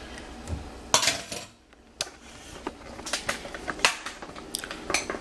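Irregular light clicks and taps of kitchen utensils and dishes being handled during pizza making, with a brief lull about a second and a half in.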